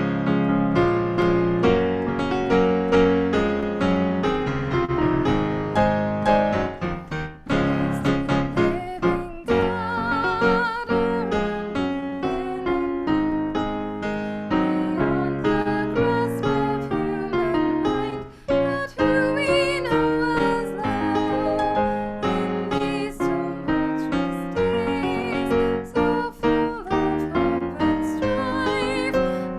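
Piano music: an instrumental passage of many sustained chords and melody notes, starting abruptly and going on at a steady volume.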